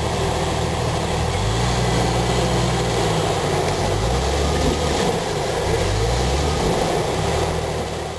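Lifted Jeep Cherokee's engine working under load as it crawls through a deep rut, the revs rising about a second and a half in, dropping back, then rising and falling again near the end.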